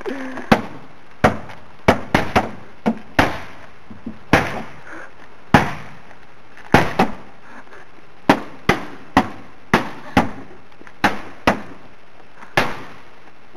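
Repeated hard blows struck on the sheet-steel bonnet of an old Ford hatchback, about twenty sharp metallic bangs at irregular gaps of half a second to a second, each with a brief ring.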